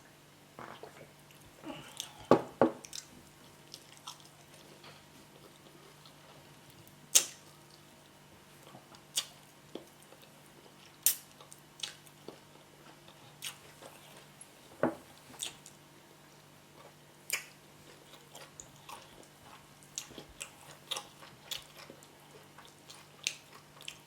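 Close-up mouth sounds of a person eating yam cooked with spinach: irregular wet chewing and smacking, with sharp clicks a second or two apart.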